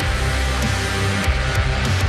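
Thrash death metal music: distorted electric guitars with bass and drums, steady and loud.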